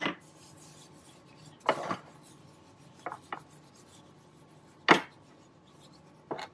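Hands rubbing a dry spice rub into a raw pork roast on a plate: a handful of short scrubbing strokes, the loudest about five seconds in.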